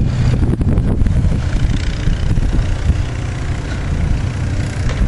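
Low, steady rumble of vehicle noise mixed with wind buffeting the microphone.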